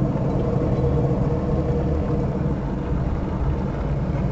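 Worn rear wheel hub bearing of an Audi 80 B3 humming as the jacked-up wheel spins freely by hand: a steady low hum with a faint steady tone over it. The hum is the sign that the bearing is worn out and due for replacement.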